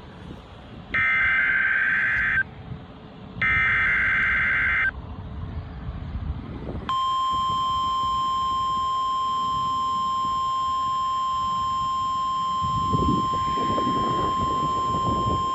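Emergency Alert System test on NOAA Weather Radio: two short bursts of SAME header data tones, about a second and a half each. After a gap of about two seconds comes the steady 1050 Hz weather radio warning alarm tone, held for about nine seconds.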